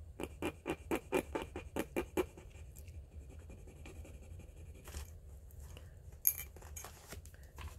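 Metal earring hooks rubbed back and forth on a black touchstone in a quick run of about five scraping strokes a second for two seconds, then a few lighter scrapes and one sharp click. The hooks are leaving a metal streak for a test of whether they are sterling silver.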